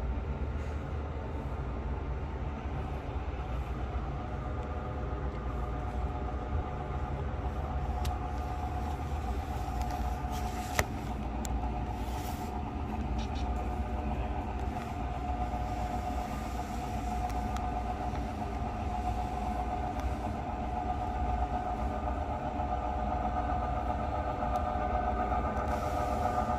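Model railroad diesel locomotives running along the track with a steady hum and rumble that grows louder near the end as they come closer. A single sharp click sounds about eleven seconds in.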